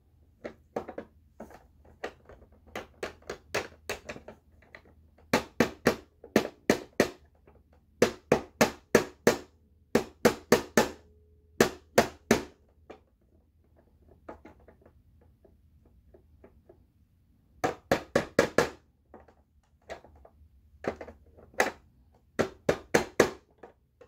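Quick runs of sharp knocks, three to six hard taps at a time with short pauses between, as the loose height-adjustment part of a Dirt Devil Dynamite Plus upright vacuum is knocked back into place; the part keeps coming out.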